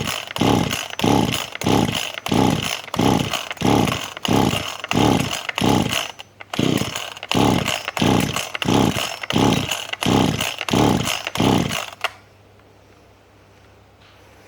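Small two-stroke chainsaw being cranked with quick repeated pulls of its recoil starter, about two a second, the engine turning over without catching. The owner suspects it could be flooded. After a short break about six seconds in, the pulling stops about twelve seconds in.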